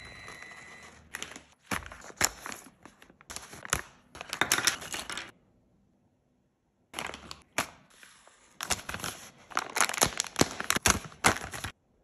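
Hands handling small RC crawler parts: crinkling and rustling with many sharp clicks and taps, in two bursts separated by a short silence near the middle. A faint steady high whine sounds for the first second.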